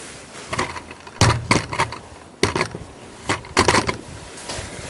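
Metallic clicks and clacks of a single-barrel break-action shotgun being handled at its action, a series of irregular sharp clicks over a few seconds.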